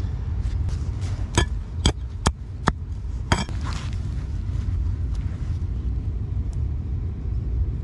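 Five sharp clinks in about two seconds, the first and last ringing briefly, from hard objects knocking together as soil is cleared by hand from around a buried corroded blade. A steady low wind rumble on the microphone runs underneath.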